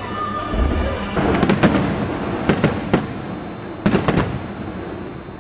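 Aerial fireworks shells bursting overhead in a string of sharp bangs, mostly in pairs and triples, after a low thud in the first second.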